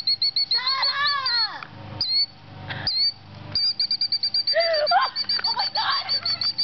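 An agitated nesting bird giving a rapid run of short, high, evenly spaced alarm chirps that breaks off for a couple of seconds midway and then starts again. A few lower, sliding pitched cries come in between.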